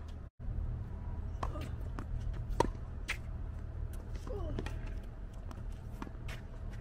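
Tennis rally: a ball struck by rackets and bouncing on the hard court, several sharp pops spread a second or so apart, the loudest about two and a half seconds in, over a steady low rumble. The sound cuts out briefly just after the start.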